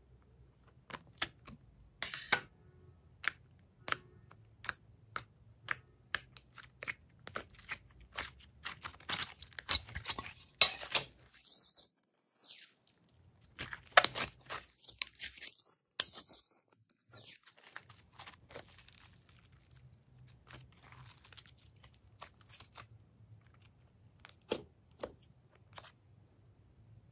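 Packaging being torn and crinkled, a dense run of sharp rustles and tearing clicks that thins out near the end.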